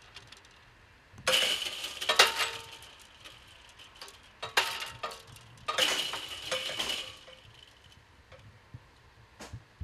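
Railway crossing barrier arm with its hanging metal lattice skirt coming down and settling, rattling and clinking in three bursts, each followed by a short metallic ringing.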